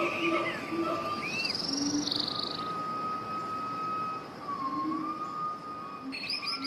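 Several birds singing and calling together: short rising and falling chirps and longer held whistles, with a new burst of quick chirps near the end.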